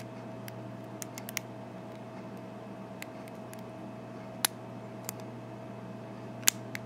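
Lock pick and tension tool working the pin tumblers of an American 5200 series padlock cylinder: scattered small metallic clicks, with two sharper clicks about four and a half seconds in and near the end, over a steady hum.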